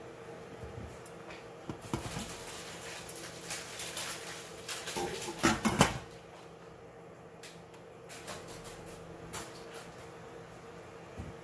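Kitchen clatter of dishes and utensils being handled: scattered clicks and knocks, busiest in the middle with a few louder knocks, over a steady low hum.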